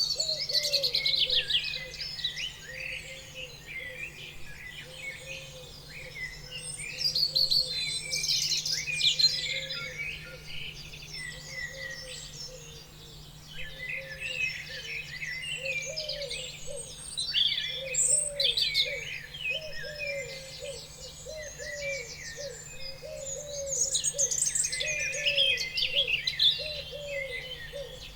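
Several birds singing and calling at once, a dense mix of overlapping chirps and trills, with a lower note repeated over and over beneath them and a faint steady hum.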